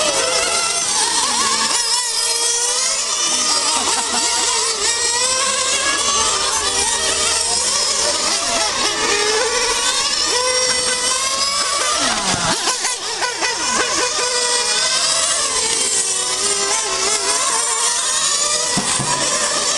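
Several radio-controlled model racing cars running laps, their high-pitched motors overlapping and constantly rising and falling in pitch as they accelerate and brake.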